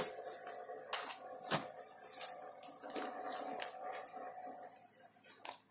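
Clear plastic sleeves of cross-stitch kits rustling and crinkling as they are handled and shuffled through by hand, in a run of irregular crackles. A faint steady hum runs underneath.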